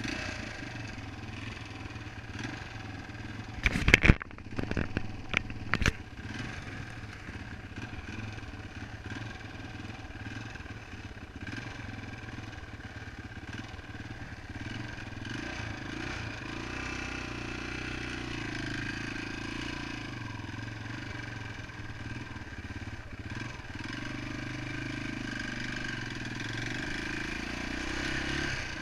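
1993 Yamaha XT350 dirt bike's single-cylinder four-stroke engine running as it is ridden. A cluster of loud sharp knocks comes about four to six seconds in.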